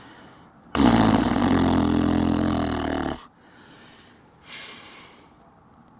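A man's long, strained groan of effort, held at one low pitch for about two and a half seconds and cut off abruptly, followed by a fainter heavy breath out.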